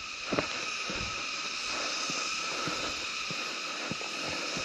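A steady high drone of summer insects, likely cicadas, with soft, irregular footsteps walking on a path.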